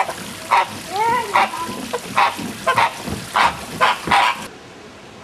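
Large green macaws squawking: a run of about ten loud, harsh calls, one every half second or so, cutting off suddenly near the end.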